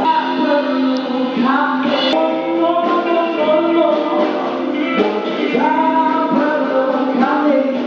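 Live band music with a singer's voice over electric bass and keyboard. It sounds thin, with almost no low end.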